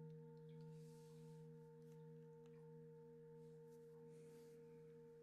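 A Hess singing bowl ringing out faintly: a low hum with several steady overtones, slowly fading.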